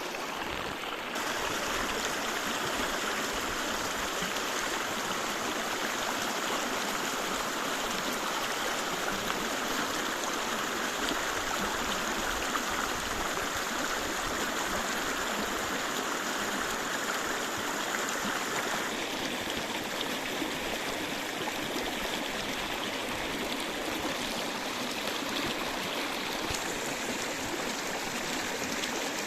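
Running water flowing steadily, an even rushing sound. Its tone shifts slightly about a second in and again about two-thirds of the way through.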